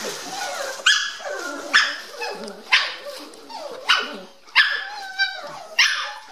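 Dandie Dinmont Terrier puppies play-barking: about six sharp, high barks roughly a second apart, with softer yips and grumbles between.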